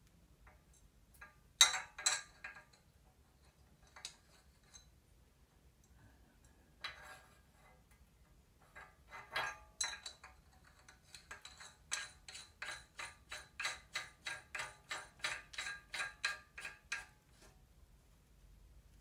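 Metal clinks and taps from bicycle headset parts, the new ball-bearing races and cups, being fitted onto a fork steerer tube, a few sharp clinks early, then a steady run of small clicks, about three a second, as a part is turned down on top of the stem.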